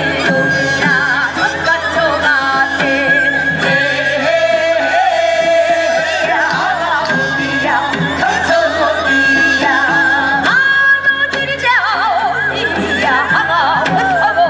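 Korean traditional (gugak) music: a wavering, heavily ornamented melody with long held notes over frequent percussion strikes.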